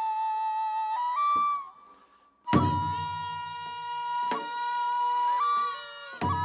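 Korean traditional music: a wind instrument playing long held notes that step up in pitch, breaking off for a moment about two seconds in. It comes back in with a deep drum stroke, and a second drum stroke falls near the end.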